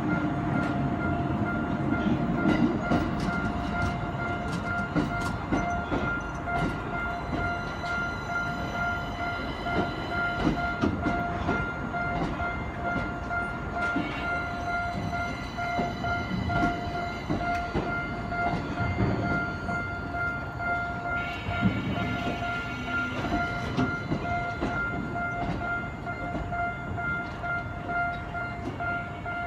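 Japanese level-crossing alarm ringing in an even, repeated clang, over a Tokyo Metro Ginza Line train rumbling across the crossing with its wheels clicking over the rail joints.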